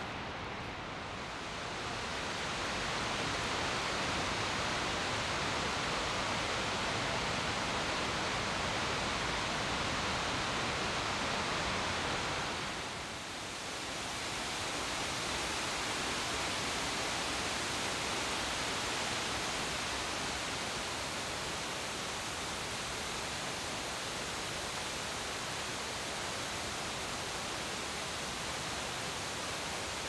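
Steady rush of Ramona Falls, a tall cascading waterfall. The sound dips briefly about 13 seconds in.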